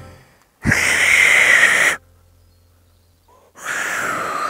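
Two hard blows of breath through two fingers held in the mouth, failed attempts at a loud finger whistle: mostly rushing air with only a faint whistle tone in it. The second blow is a little lower and slides down in pitch.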